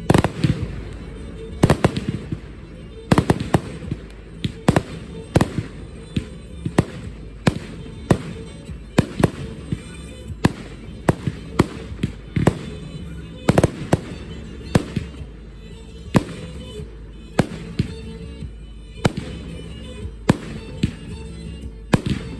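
Aerial firework shells bursting in a long string of sharp bangs, about one or two a second, over music playing throughout.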